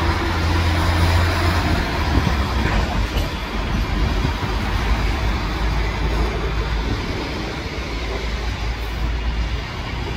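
Electric multiple-unit trains in a railway station: a steady low rumble with a noisy rolling hiss, heaviest in the first second.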